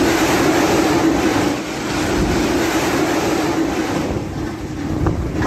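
Storm-force wind and heavy rain making a loud, steady rush, with wind buffeting the microphone; it eases a little after about four seconds.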